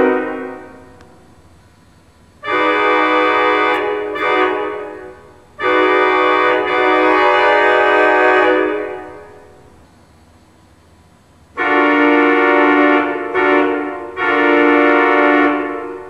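Pipe organ sounding full sustained chords that imitate a locomotive air horn, played as horn blasts: two blasts a few seconds in, then after a pause a long-short-long group. Each chord dies away in the room's echo.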